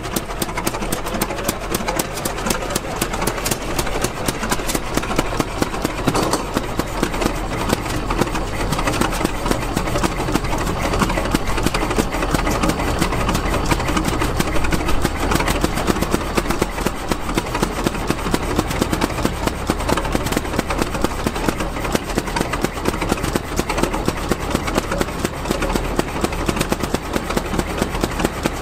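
Antique stationary gas engine running steadily with rapid, even firing pulses.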